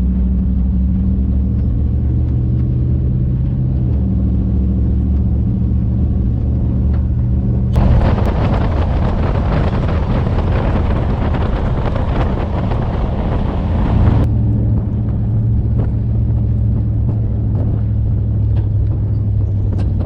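A vehicle engine running steadily with a low, even drone. A louder rushing noise joins it from about eight to fourteen seconds in.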